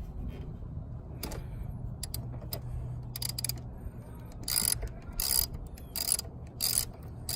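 An 8 mm ratchet clicking as it loosens the nut on the negative battery terminal clamp. A few scattered clicks come first, then about halfway through a regular run of ratchet strokes, about three every two seconds.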